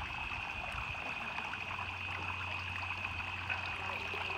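Water trickling steadily from bamboo spouts into a shrine's purification basin (temizuya), with water pouring back from a wooden ladle near the end.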